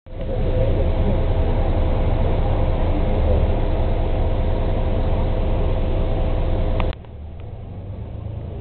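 A city bus's engine and drivetrain running while the bus drives, heard from inside the cabin: a steady rumble with a steady whine over it. About seven seconds in the sound drops suddenly to a quieter rumble and the whine stops.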